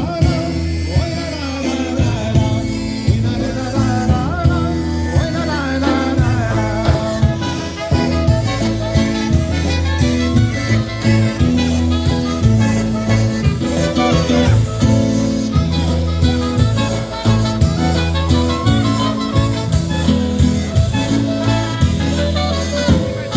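Live polka band playing an instrumental passage of a polka, with melody instruments over a steady bass beat.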